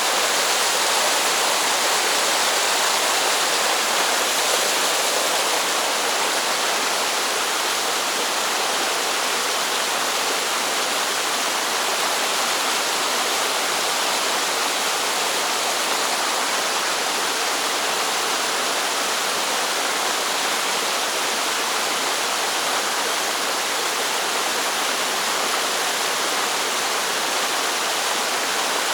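Mountain stream water rushing steadily over rocks, a constant even rush.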